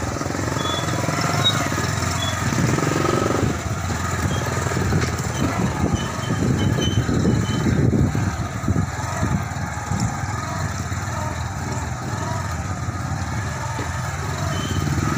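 Motorcycle engine running as the bike is ridden along, with road noise.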